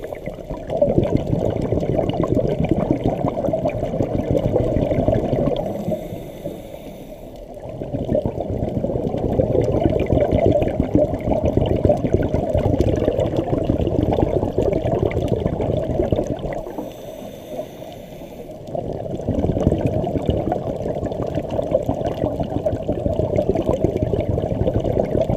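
Muffled, crackling rush of water heard underwater by a camera in its waterproof housing. It eases off twice for a second or two before it comes back.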